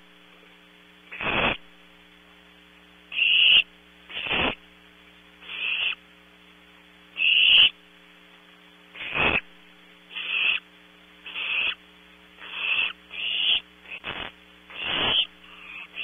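Barn owl owlets giving repeated harsh, hissing begging calls, each about half a second long, roughly one a second and coming faster near the end. A steady electrical hum from the nest camera runs underneath.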